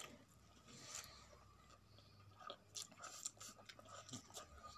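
Faint close chewing of noodles, with scattered soft mouth clicks.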